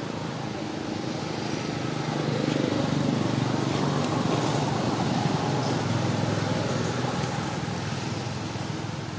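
A motor vehicle passing by: a low engine and road rumble that swells about two seconds in, stays loudest for a few seconds, then fades away.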